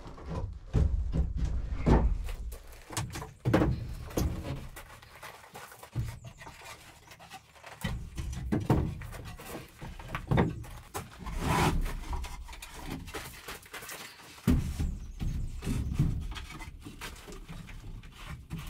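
Irregular wooden knocks and thuds as cedar bench boxes are lifted, set down and fitted onto their frame, with footsteps on gravel.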